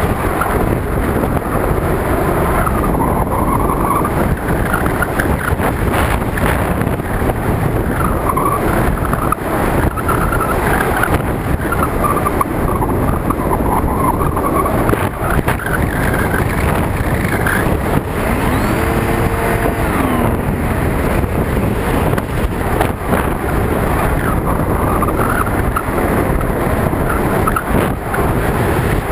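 Wind buffeting the onboard camera's microphone on a Hobbyking EPP-FPV foam plane in flight, with the electric motor and propeller whining underneath, its pitch rising and falling again and again.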